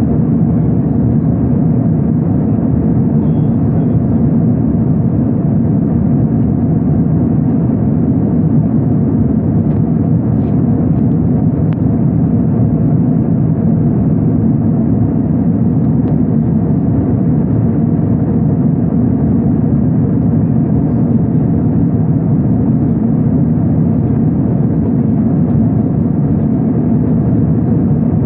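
Steady low drone of a jet airliner's cabin in flight: engine and airflow noise heard through the fuselage.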